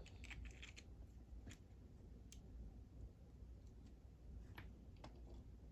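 Faint, scattered clicks of small lock pins and tools being handled as a pin stack is taken out of a disassembled Sargent lock cylinder.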